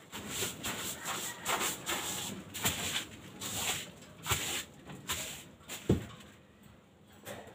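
African lovebirds chirping, a series of short high calls repeating every half second to a second, with a single knock about six seconds in.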